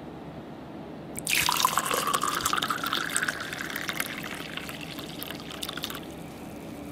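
A clear drink poured into a glass tumbler, the liquid bubbling up as it fills. The pour starts about a second in, its pitch rises as the glass fills, and it stops about six seconds in.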